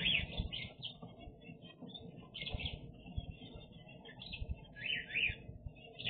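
Zebra finches calling: short chirping calls in bursts of about half a second, several birds at once, over a low rumble of soft knocks.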